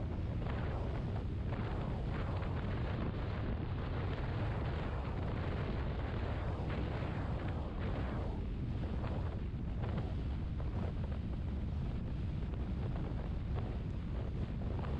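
Wind buffeting on the microphone of a maxi scooter riding at road speed: a dense, steady rumble with road and engine noise underneath.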